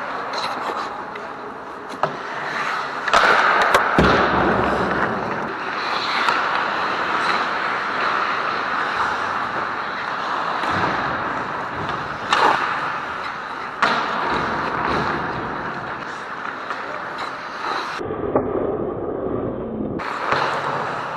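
Ice hockey game play: skates scraping and carving on the ice under a steady rink hiss, with sharp clacks of sticks and puck several times and a heavier thud about four seconds in.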